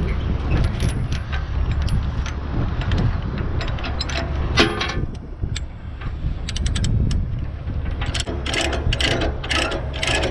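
Ratchet chain binder being cranked to tighten a tie-down chain: bursts of rapid ratchet clicks and chain rattle, coming thickest in the second half, over a steady low rumble.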